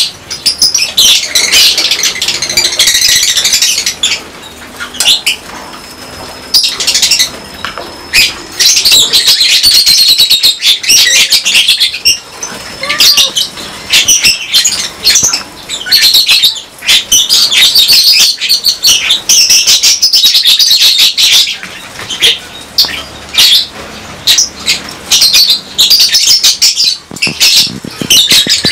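A colony of lovebirds chattering with dense, shrill, rapid calls, nearly continuous with brief gaps, mixed with sharp clicks and wing flutters.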